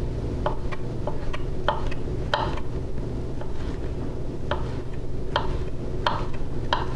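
Chef's knife slicing a shiitake mushroom, the blade knocking on a wooden butcher-block cutting board about a dozen times at an uneven pace, over a steady low hum.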